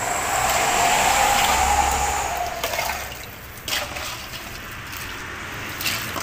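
Iced drink and ice sloshing and pouring as a plastic cup is scooped through a basin of it. The sound is loudest in the first three seconds, then quieter, with two sharp knocks.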